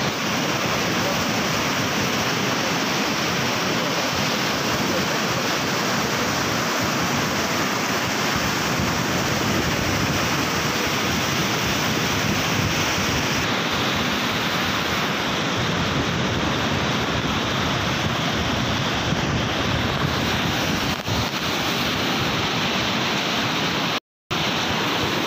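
Muddy floodwater of a swollen river rushing and churning through a breach in its bank, a loud steady rush of water. It cuts out briefly near the end.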